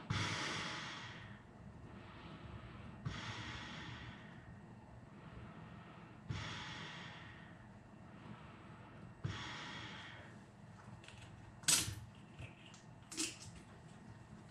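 A person breathing through a UNIX 5100 full-face gas mask fitted with twin filter cartridges. There are four strong breaths about three seconds apart, each a sudden hiss that fades over about a second, with fainter breaths between. Near the end come a few sharp clicks as the mask is loosened and lifted off.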